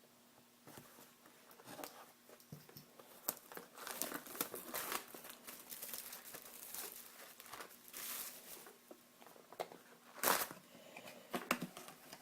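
Plastic shrink-wrap crinkling and tearing as a sealed box of hockey cards is opened. There are irregular crackles throughout and a sharp, loud rip a little after ten seconds.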